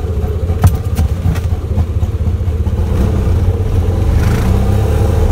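Auto-rickshaw (tuk-tuk) engine running loud as it drives, heard from inside the open passenger cabin, with a few sharp clicks in the first second and a half.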